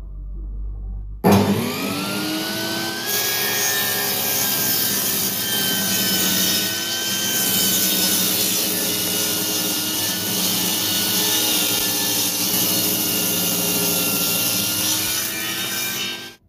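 Table saw motor starting, its pitch rising for about a second, then running steadily while the blade rips a pine board along the fence; the sound stops abruptly near the end.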